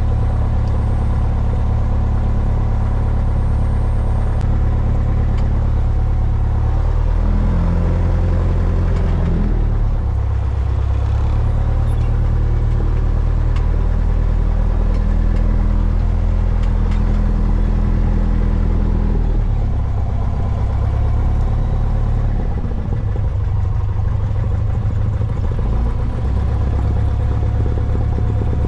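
Cessna 172's piston engine and propeller running at low power on the ground, heard from inside the cockpit. Its note steps up and down a few times as the power changes while the aircraft starts to taxi.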